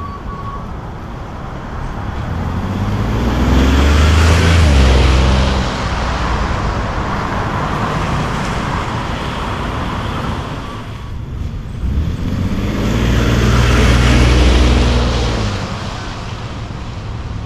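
A 2023 Ford F-150's 3.5-litre EcoBoost V6 on its factory exhaust, driving past twice. Each pass swells and fades, the first about four seconds in and the second about ten seconds later.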